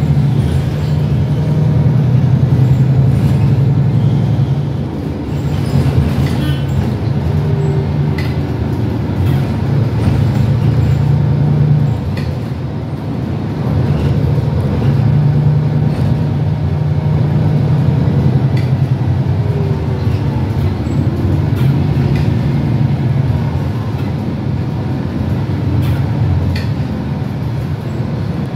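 Cabin sound of a MAN NL323F (A22) Euro 6 city bus under way: its diesel engine drones steadily, drops away briefly about five seconds in and again around twelve seconds, and eases off near the end, with light interior rattles and clicks.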